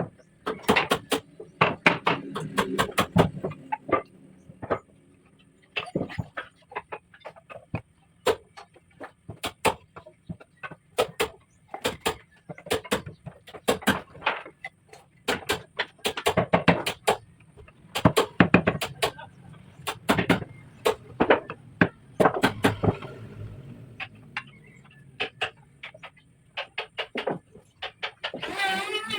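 Irregular sharp knocks and taps of wood being struck, some in quick runs of several blows, with quieter gaps between.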